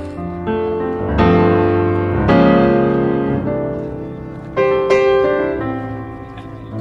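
Background piano music: chords struck every second or two and left to ring and fade.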